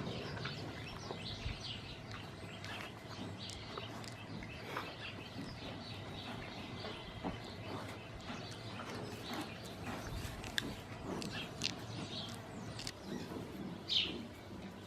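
Small birds chirping again and again, short high chirps, with scattered clicks and knocks over a faint steady low hum.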